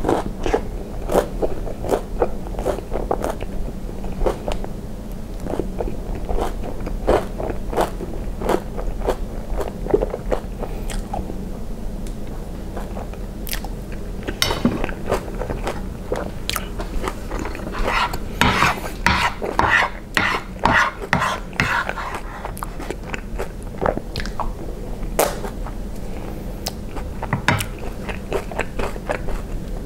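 Close-miked mouth sounds of a person chewing a mouthful of fried ice cream: wet, sticky smacks and clicks, coming thick and fast for a few seconds a little past the middle.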